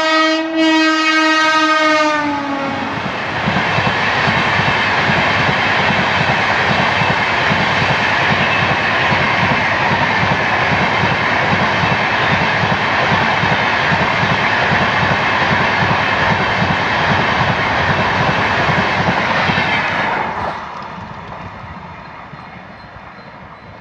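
An express passenger train passing at speed. The locomotive's horn sounds in two blasts, its pitch dropping slightly as the engine goes by. A steady rush of the coaches follows, with a fast, even clatter of wheels over the rail joints, which fades about 20 seconds in as the last coach passes.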